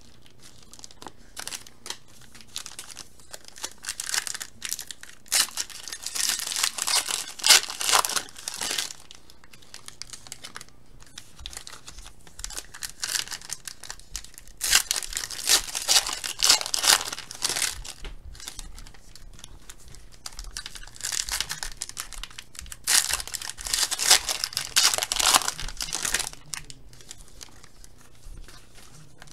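Foil trading card packs being torn open and crinkled, in about six crackly bursts of a few seconds each with quieter gaps between.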